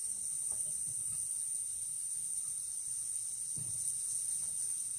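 Butane soldering iron burning with a steady high-pitched gas hiss as its tip heats the solder under a TV backlight LED.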